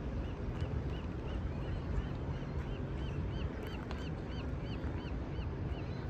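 A bird calling a long series of short, arched whistled notes, about three a second, loudest in the middle and stopping just before the end, over a steady low rumble.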